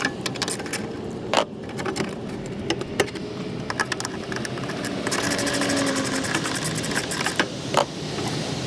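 Ratchet wrench with a 10mm socket clicking as it loosens the nuts holding a van's taillight. Rapid irregular ratchet clicks, with metal rattling and a few louder knocks.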